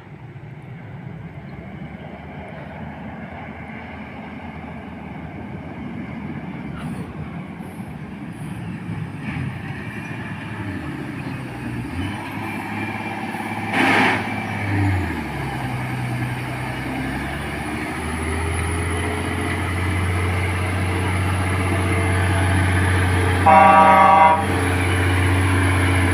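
Logging truck's diesel engine labouring up a climb, growing steadily louder as it comes closer. About halfway through the engine note drops and changes at a gear shift, with a short harsh burst of noise, then settles into a steady pull. A horn sounds for under a second near the end.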